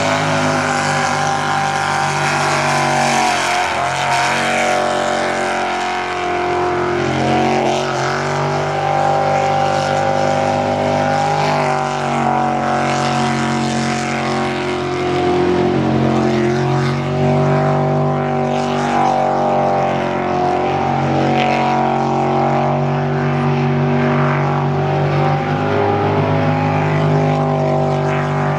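Jet sprint boat's engine running hard through a hot lap, its pitch rising and dipping again and again as the throttle comes on and off through the turns.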